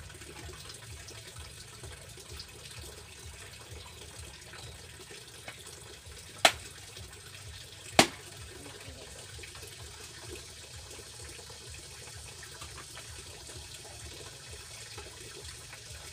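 Steady sound of running water, broken by two sharp knocks about six and a half and eight seconds in, as a knife strikes the cutting board while a bullet tuna is cut up.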